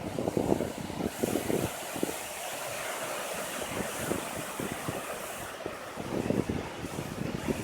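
Wind buffeting the microphone in irregular gusts over a steady rush of ocean surf, with a brighter hiss through the middle.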